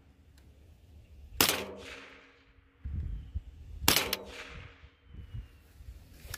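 Two single shots from a GSG-16 .22 LR rifle, about two and a half seconds apart, each followed by a short ringing echo. These are sighting-in shots after a scope adjustment.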